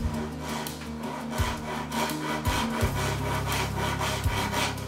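Handsaw cutting into the end grain of a hardwood cutting board, with steady back-and-forth strokes about three a second, as the tenon for a breadboard end is sawn.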